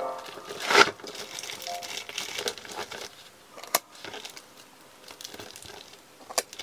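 Gift wrapping paper crinkling and rustling as hands handle and turn a wrapped box. It is loudest just under a second in, with a few sharp taps later.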